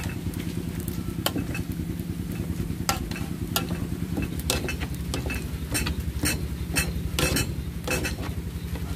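Cooked bitter eggplants being mashed in a metal pot with the bottom of a bottle: irregular knocks of the masher against the pot and the mash, roughly one or two a second and busiest near the end, over a steady low drone.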